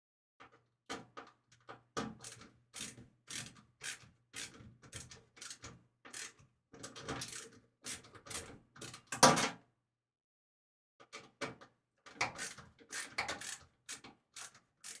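A quick run of clicks, knocks and rattles as computer case and cooler parts are handled and fitted. A louder knock comes about nine seconds in, followed by a short pause.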